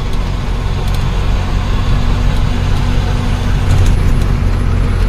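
Ashok Leyland 1214 truck's diesel engine running steadily while driving, a low drone heard inside the cab along with road noise.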